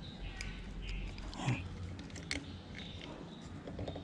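Small clicks, scrapes and rustles of hands fitting a sensor on a motorcycle throttle body, with a short knock about one and a half seconds in.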